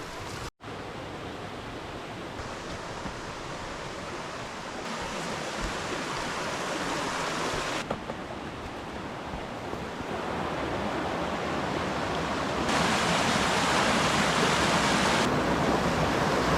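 Steady rush of a river's flowing water, growing louder in several abrupt steps, loudest near the end.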